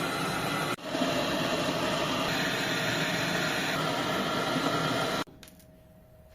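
Steady machine noise with a strong hiss and a low hum. It breaks off sharply for an instant under a second in, and about five seconds in drops abruptly to a much fainter hum.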